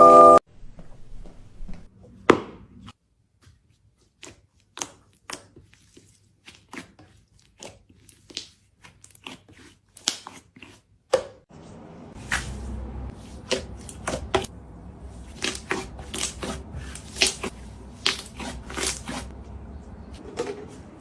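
Slime being squeezed and poked, giving irregular sticky clicks and pops, sparse at first and coming thicker over a faint steady background in the second half.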